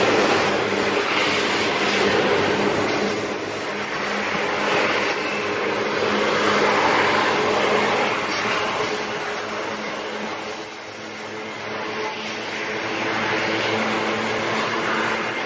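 A long freight train of grain hopper wagons rolling past: a steady rumble and rush of steel wheels on the rails, swelling and easing a little as the wagons go by.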